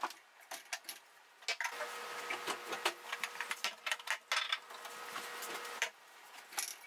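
Faint clicks and light knocks of glass jars, bottles and a plastic film-development tank being picked up and set down on a stone counter, over a faint steady hum from about a second and a half in until near the end.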